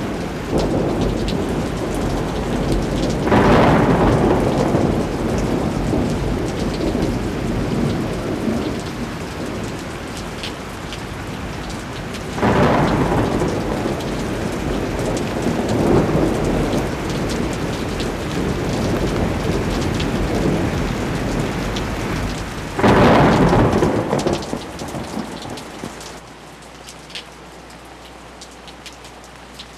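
Thunderstorm: steady rain with four loud rolls of thunder that swell and die away. It falls to a quieter hiss near the end.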